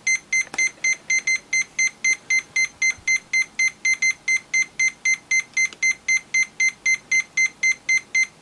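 Fluke 87V multimeter's continuity beeper giving short, evenly spaced beeps at one steady pitch, about four a second. A continuity tester is pulsing a short across its probes, and each beep is the meter catching one of the shorts.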